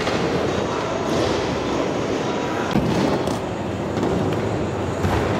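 Skateboard wheels rolling over concrete ramps in a steady rumble, with a few sharp clacks of boards hitting the surface around the middle and again near the end.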